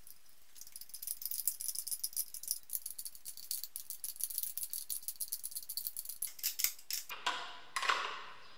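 Ratchet wrench clicking rapidly as it is worked back and forth to tighten a screw, followed near the end by a couple of louder rasping sounds.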